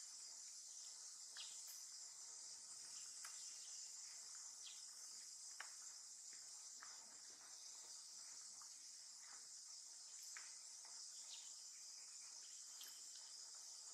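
Faint, steady, high-pitched chorus of insects, with a dozen or so faint, scattered ticks.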